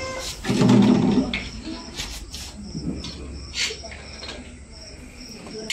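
Crickets chirping in a steady pulsing trill. A louder low-pitched sound comes about half a second in, and a few short sharp scrapes or clicks follow.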